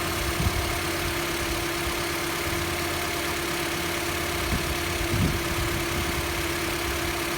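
Toyota Voxy ZRR70's four-cylinder engine idling with a steady tone running over it, the abnormal noise of a failing water pump. A couple of brief low thumps come about half a second in and about five seconds in.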